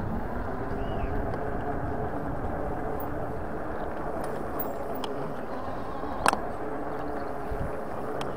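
Lankeleisi X3000 1000 W e-bike being ridden along a tarmac path: steady wind and tyre noise with a faint steady hum, and one sharp knock about six seconds in.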